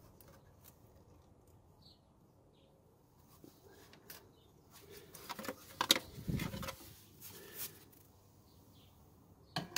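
Faint handling noise, then a few seconds of irregular metal clicks and knocks with a low thump about six seconds in, as the sheet-metal heat shield over a Renault E7J 1.4 engine's exhaust manifold is worked loose and lifted off.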